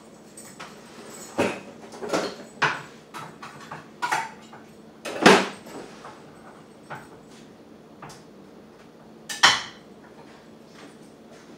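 Kitchen clatter of dishes and utensils being handled: a handful of sharp knocks and clinks, the loudest about five seconds in and another near nine and a half seconds, over a faint steady hum.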